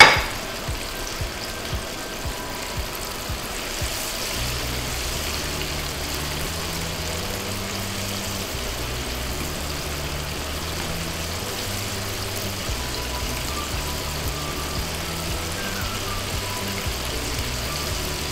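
Flour-coated chicken wings deep-frying in very hot oil, a steady sizzle, with a few light clicks in the first few seconds. From about four seconds in, background music with a low, stepping bass line plays over the sizzle.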